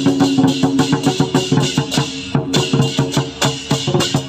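Procession percussion: a large barrel drum on a cart being beaten and a pair of hand cymbals clashed, in a fast, dense rhythm.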